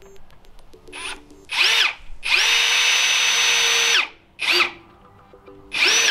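Ryobi R18PDBL-0 18V ONE+ brushless hammer drill driving screws overhead. It runs in short trigger bursts, each whining up in pitch and back down, with one steady run of about a second and a half near the middle.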